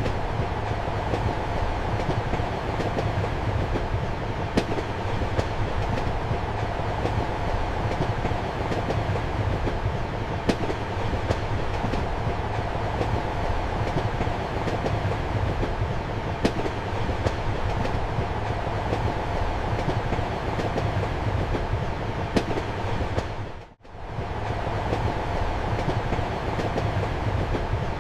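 Train in motion heard from inside a compartment: a steady rolling rumble with a sharp wheel click every several seconds. About 24 seconds in, the sound fades almost to nothing for an instant and comes straight back.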